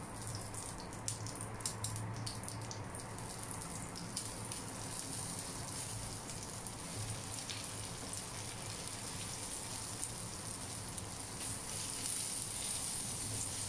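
Eggplant omelettes frying in shallow oil in a pan, a steady sizzle with fine crackling. A few sharp clicks in the first few seconds as a spatula and fork work against the pan to turn them.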